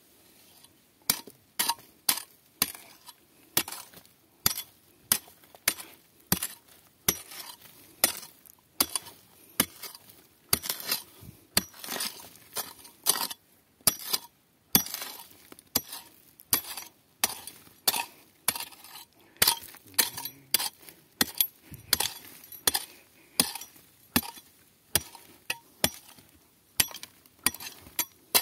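Hand pick striking weathered pegmatite rock and loose gravel over and over, roughly two sharp clinking hits a second, with a short pause about halfway through.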